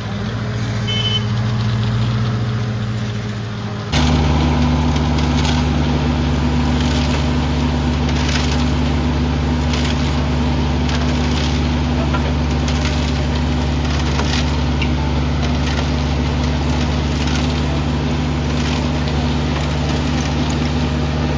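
Diesel engine of a Schwing Stetter SLM600 self-loading concrete mixer running steadily. About four seconds in it jumps suddenly to a louder, lower engine note that then holds steady, with scattered knocks and clatter over it.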